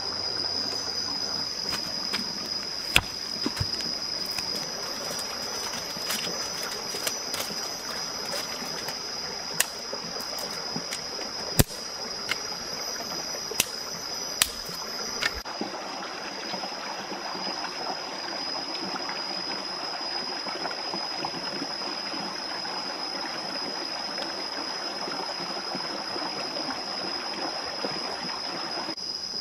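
Steady rush of running stream water with a constant high insect drone over it. Scattered sharp clicks and knocks sound during the first half.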